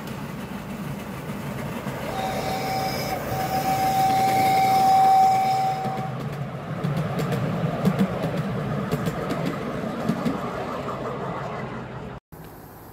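Miniature 7¼-inch gauge train passing close by. The locomotive's whistle sounds one long, steady blast with a short break, about two to six seconds in. After it come the rumble of the carriages and the wheels clicking over the track. The sound cuts off shortly before the end.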